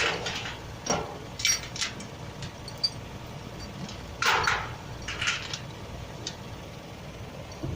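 A few short knocks and scrapes from pipe-fitting work, heard over a steady low rumble.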